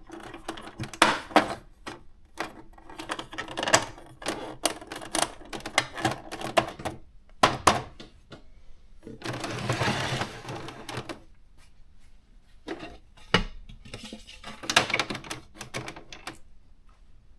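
Electronic daisy-wheel typewriter typing: irregular runs of sharp key-strike clacks, with a longer continuous mechanical sweep of about two seconds near the middle.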